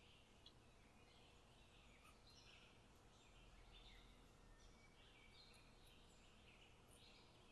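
Faint, irregular scraping of a silicone spatula stirring a thick walnut paste in a metal pan.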